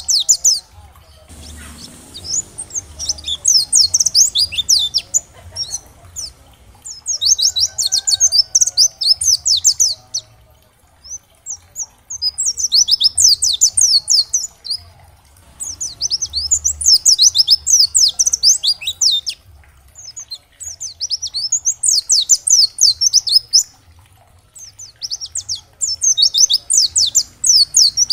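White-eye (pleci) singing in rapid, very high twittering bursts of a couple of seconds each, repeated every few seconds with short pauses.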